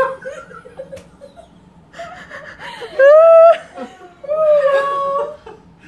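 A small group of people laughing, with two long, high-pitched drawn-out laughs: the first and loudest about three seconds in, the second a little later and steadier.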